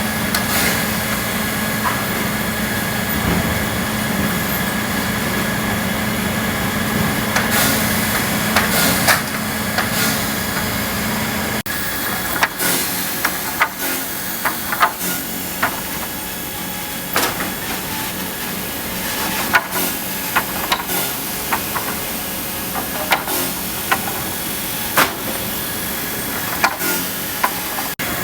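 Pallet stringer notching machine running with a steady mechanical hum. Sharp knocks and clacks come at irregular intervals, more often in the second half; the hum changes abruptly about twelve seconds in.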